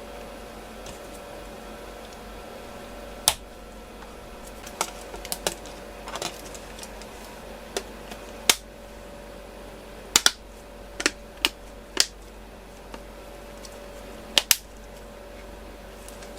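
Scattered sharp clicks and taps of small phone parts and hand tools being handled during a smartphone repair, about fourteen at irregular intervals, over a steady background hum.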